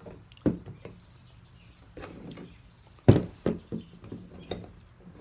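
Metal pipe clamps knocking and clicking as they are handled and set down: scattered clicks, a sharp knock about half a second in and a louder one about three seconds in, followed by a few lighter knocks.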